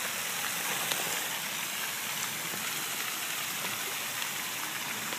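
A steady, even rushing hiss with no pitch to it, and one faint click about a second in.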